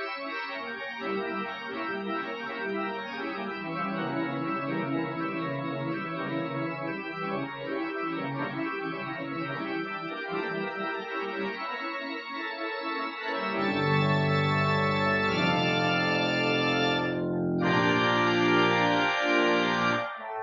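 Church pipe organ playing a piece in full chords. About two-thirds of the way in, a deep pedal bass joins and the sound grows louder and fuller, with a short break between held chords near the end.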